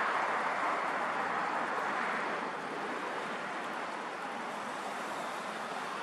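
Steady rushing outdoor background noise, a little louder over the first couple of seconds and then even.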